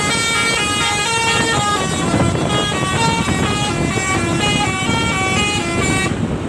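A bus's multi-tone 'telolet' air horn playing a quick tune of short horn notes, about four notes a second, stopping near the end.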